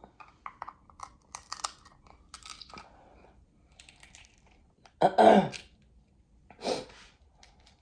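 Close-miked eating: chewing with small crunches and clicks. About five seconds in comes a loud, short vocal sound from the eater, and a fainter one follows a moment later.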